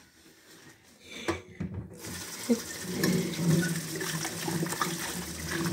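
Kitchen sink tap turned on about two seconds in, water then running steadily into the sink. A single knock comes just before it.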